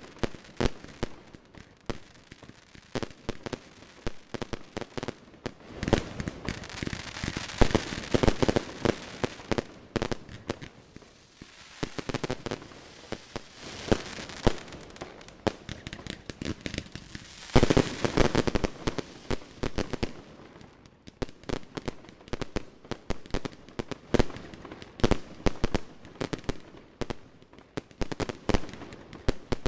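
Aerial fireworks going off in quick succession, a steady string of sharp bangs and pops, thickening into dense clusters of reports about six to ten seconds in and again around eighteen seconds.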